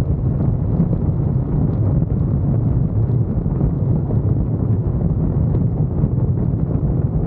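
Steady low rumble of wind buffeting the microphone, with road noise from a moving car.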